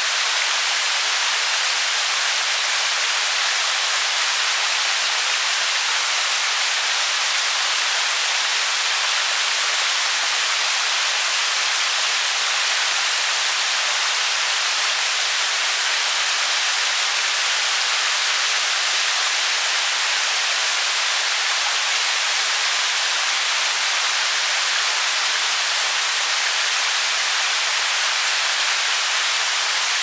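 A fast-flowing brook rushing steadily: an even, hissing rush of water with no low rumble.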